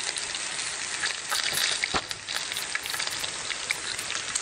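Sausages sizzling and crackling in hot oil in a frying pan, with a light knock about two seconds in.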